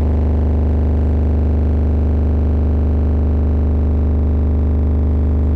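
12-inch subwoofer driven with a 25 Hz test tone at 1,000 watts RMS, giving a loud, steady, harsh buzz with many overtones. It is being deliberately overdriven to burn it out.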